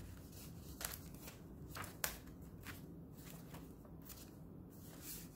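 Paper pages of a handmade junk journal being turned and handled: soft rustles and a few short paper taps, the sharpest about two seconds in.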